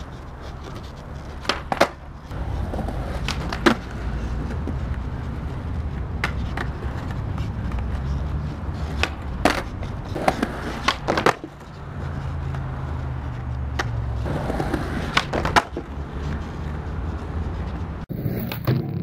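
Skateboard wheels rolling on concrete with a low rumble, broken by a dozen or so sharp wooden clacks of the board popping and landing, spread unevenly through the run.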